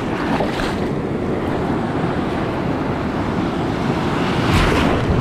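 Surf washing through the shallows, with wind buffeting the microphone. Near the end a bigger wave surges in, louder than the rest.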